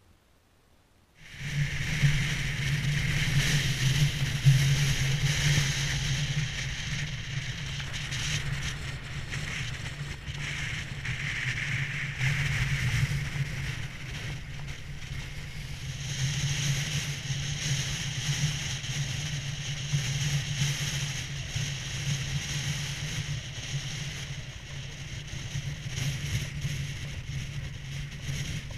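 Near silence for about a second, then, starting suddenly, a car driving along a road, heard from a camera mounted on the car's outside: a steady low engine and road drone with hissing rush over it.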